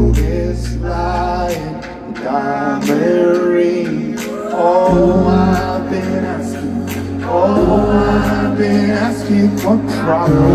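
Live rock band over a stadium sound system, heard from the audience: a male lead vocal singing a melody over sustained bass notes and drum hits, the bass shifting to a new note about halfway through.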